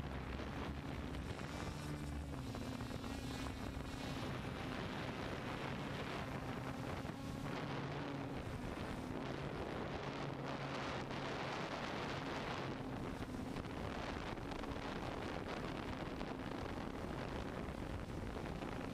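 DJI F550 hexcopter's six motors and propellers humming steadily, heard from the GoPro on board, with wind rushing over the microphone. The hum's pitch wavers briefly a few seconds in.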